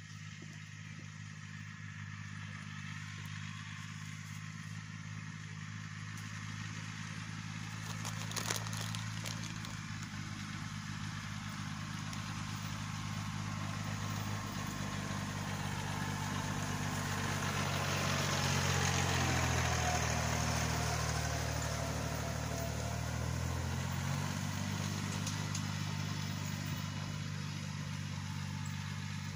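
Yanmar 1610's three-cylinder diesel engine running steadily under load as the tractor pulls a wheel hay rake, growing louder to its nearest point about two-thirds through and then fading a little. A brief sharp knock comes about eight seconds in.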